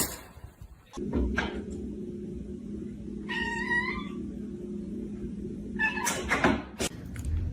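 A cat meows once, a single call of about a second, over a steady low hum, with a few short knocks near the end.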